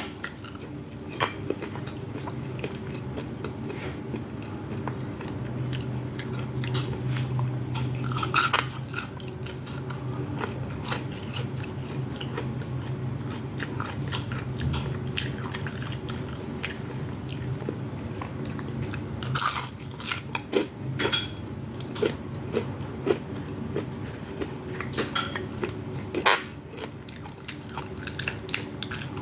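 A person chewing and biting food close to the microphone: wet chewing with scattered crunchy bites and mouth clicks, a few of them sharper and louder.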